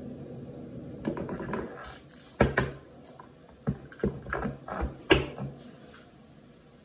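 Handling noise of tools and fittings during faucet supply-line hookup: rustling, then a handful of sharp clinks and knocks, the loudest about two and a half and five seconds in, over a low steady hum that fades after about two seconds.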